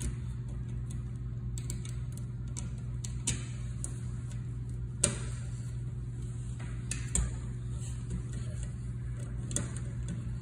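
Scattered light clicks and taps of a hand screwdriver and range-cord ring terminals against the metal terminal block, the sharpest about halfway through, over a steady low hum.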